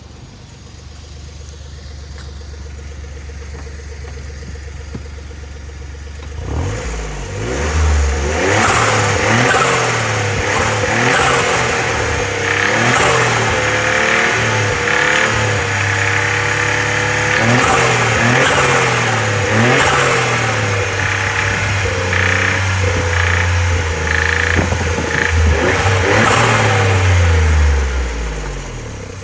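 Suzuki Carry's K6A three-cylinder turbo engine idling, then revved up and down over and over from about six seconds in until near the end, with sharp knocking through the revs. It is the abnormal noise of an engine that has burned up.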